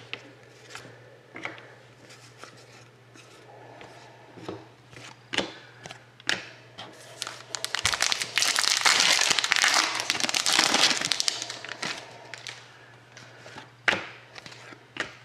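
Hands handling trading cards with scattered light clicks and rustles, then a foil card pack being torn open, its wrapper crinkling loudly for about four seconds around the middle.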